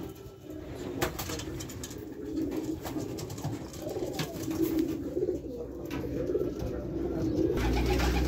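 Many homing pigeons cooing together in an enclosed loft, several birds calling over one another, with a few sharp clicks among them. A low rumble sets in near the end.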